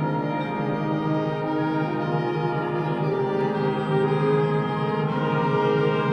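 Concert band playing, with sustained brass chords held over a steady low note.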